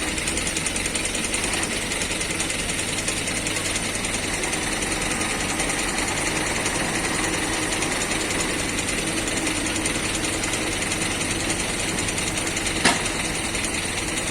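Heavy diesel construction machinery running steadily under load, with a fast, even rattle, and one sharp click near the end.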